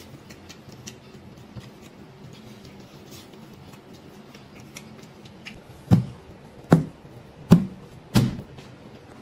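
Quiet chewing and lip-smacking with small wet clicks. Then, from about six seconds in, four heavy thuds come roughly three-quarters of a second apart, each dying away quickly.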